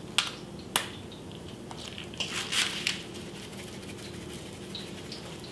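Two sharp clicks, then a few short gritty rasps about two to three seconds in: a pepper dispenser handled and pepper going into the seasoned flour.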